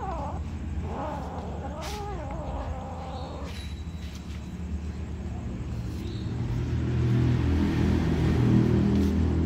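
Kitten meowing several times in the first three seconds or so, high thin calls that bend in pitch. In the second half a low rumble rises and becomes the loudest sound.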